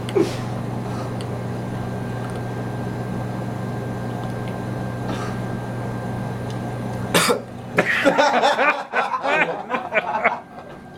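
A steady low hum runs for about seven seconds. Then a sudden loud burst comes, followed by a few seconds of a man coughing and gargling, spluttering on milk taken in through his nose.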